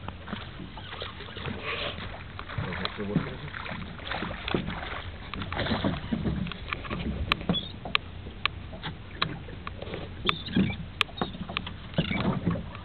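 A small boat's engine hums steadily over splashing water noise. About halfway through, a series of sharp, irregular clicks or knocks starts up.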